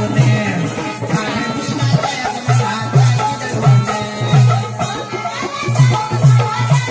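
Instrumental Marathi devotional folk music: a hand drum beats a steady rhythm under a melody line.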